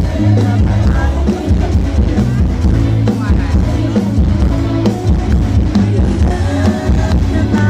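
Live band playing an Isan-language Thai song, with loud bass and a steady drum beat.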